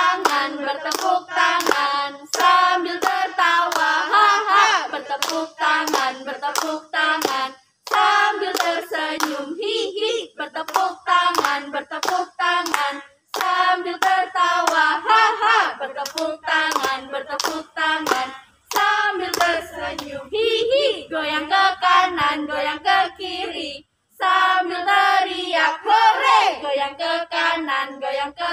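A group of young women singing a clapping chant in unison, with sharp hand claps in rhythm all through, pausing briefly every five or six seconds between verses.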